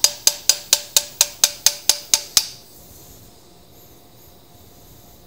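Surgical mallet striking a femoral broach handle in a quick, even series of sharp metallic taps, about four a second, each with a short ring, driving the broach into the femoral canal to shape it for the hip stem. The tapping stops about two and a half seconds in.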